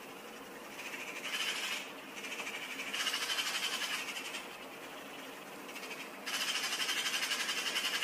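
Eurasian magpie giving its rapid rattling chatter in three bursts, each one to two seconds long, the last running on past the end.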